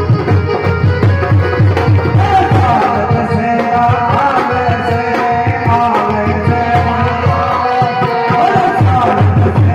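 Live devotional music played loud through a PA: an electronic keyboard over a fast, even tabla-style drum rhythm, with a sustained, slightly wavering melody line that comes in about two seconds in.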